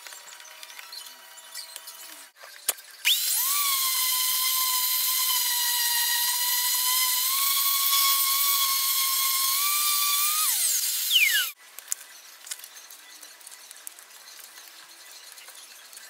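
Random orbital palm sander switched on about three seconds in, running with a steady high whine while sanding a plywood panel. It is switched off after about eight seconds, and the whine falls away as it winds down.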